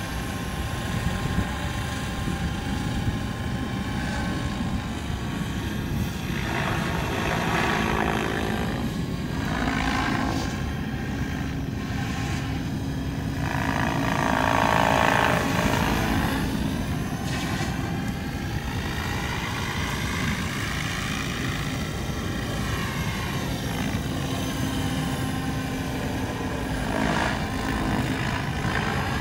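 SAB Goblin Kraken 580 electric RC helicopter flying overhead: a continuous rotor and motor whine whose pitch bends up and down as it manoeuvres. There are several louder swells, the loudest about halfway through.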